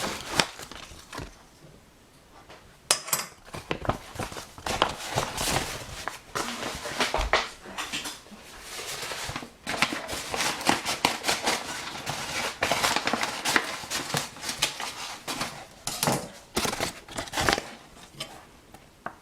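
Utensil scraping and clinking against a pan, in irregular strokes, as flour is worked into banana cake batter.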